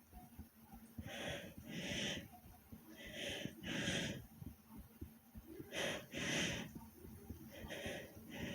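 A person breathing heavily after exercise: four deep breaths, each a pair of rushes of air in and out, about two seconds apart.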